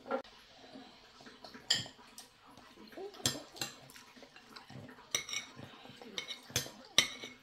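Metal spoon clinking and scraping against a ceramic plate as a child scoops up food, with irregular light clinks about once a second.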